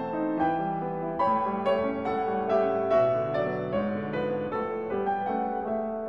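Background piano music: a melody of single notes struck one after another.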